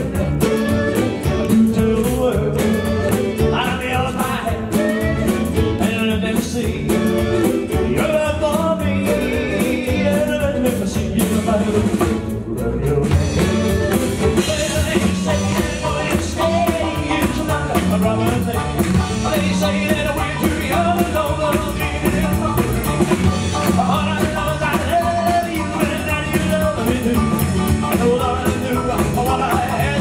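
Live band playing a song, with acoustic guitar and a man singing lead.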